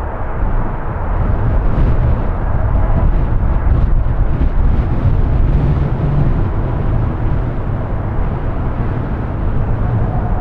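Strong gusty wind buffeting the microphone: a loud, steady, rough low rumble.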